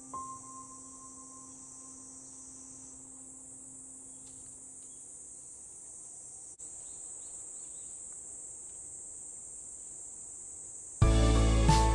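Steady high-pitched insect chorus, like crickets, with a soft tone fading away in the first few seconds and a brief dropout about halfway. Music starts abruptly near the end.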